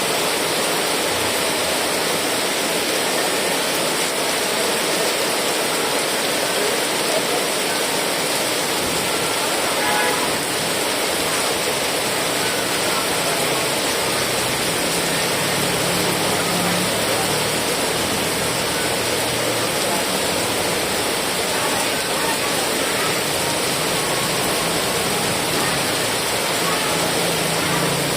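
Heavy rain pouring steadily: a dense, even hiss. A faint low hum comes and goes from about halfway through.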